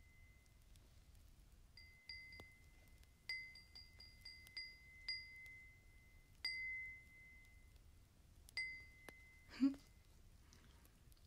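A glass tapped about a dozen times in uneven clusters, each tap leaving a clear, high ring that fades over a moment. Near the end comes one duller, lower knock.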